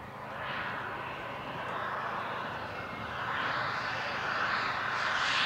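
Turbine engine of a large-scale RC jet (a CARF BAe Hawk with a Jets Munt M210TS) approaching on a low pass, its rushing noise growing steadily louder.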